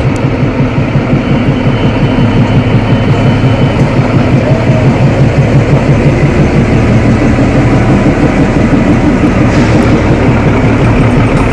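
Narrow-gauge Kalka–Shimla toy train rolling past, a loud steady rumble of its coaches on the rails.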